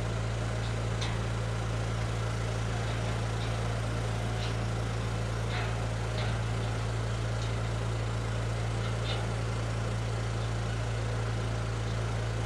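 Engine running steadily at constant speed: a low, unchanging hum over an even hiss, with a few faint clicks over it.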